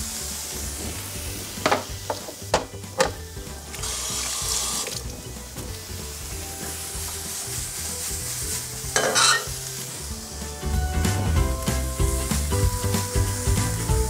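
Food frying in oil in a pan, with a steady sizzle. A few sharp knocks of a utensil on the pan come about two to three seconds in, and the sizzle flares louder around four and nine seconds in.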